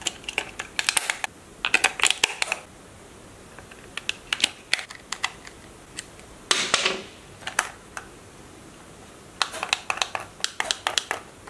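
Plastic clicking and rattling from a toy RC steering-wheel transmitter being handled as batteries are fitted and its battery cover is snapped shut. The clicks come in several quick bursts, with a brief scraping slide near the middle.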